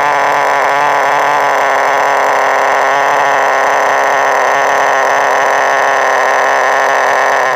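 HPI Nitro Star T-15 nitro engine of an RC touring car running at a steady, unchanging pitch.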